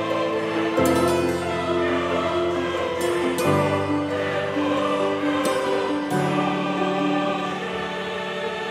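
Background music of slow, sustained choir-like chords, changing to a new chord about every two to three seconds.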